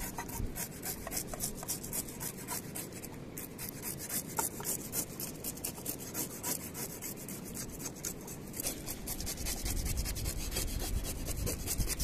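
A broad knife blade scraping the scales off a whole trout on a wooden board, in quick repeated strokes.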